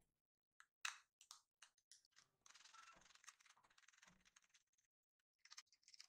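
Faint clicks and light scraping of a threaded metal bolt, a nut and a plastic bottle cap handled and fitted together by hand, with a longer soft scrape in the middle as the cap goes onto the bolt.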